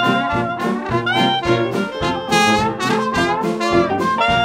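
Background music: a brass-led jazz tune, with notes changing several times a second.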